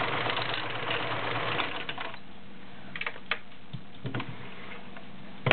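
Kenmore 1625 all-metal sewing machine stitching through three layers of leather, running for about two seconds and then stopping. A few light clicks follow, with a sharper click near the end.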